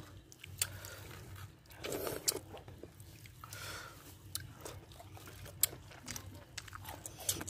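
A person biting into and chewing raw green mango mashed with masala: crunchy bites and wet mouth sounds with a few short sharp clicks scattered through.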